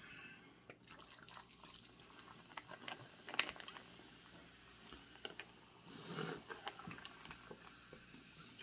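Cola poured from a glass bottle over ice in a glass: faint liquid sounds with scattered small clicks.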